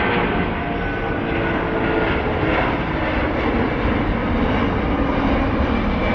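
Jet airliner engines running loud and close: a steady rush of noise with several whining tones in it, some sliding slightly lower in pitch.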